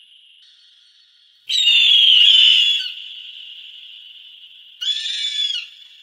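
A bird of prey calling twice: a long, loud, high call about a second and a half in, then a shorter one near the end, each made of falling notes, over a faint steady high hiss.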